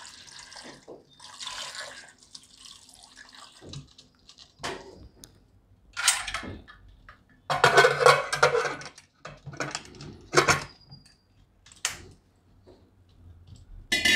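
Water pouring into a pressure cooker over cut potatoes, then a series of metal clanks and scrapes as the cooker's lid is fitted and locked down with its handle.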